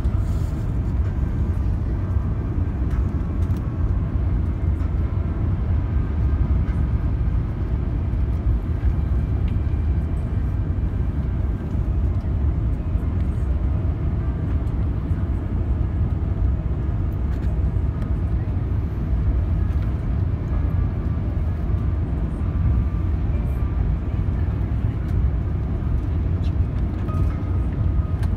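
Airbus A380-800 cabin noise on approach, heard inside the cabin at a window seat over the wing: a steady low rumble of engines and airflow with faint steady whining tones above it.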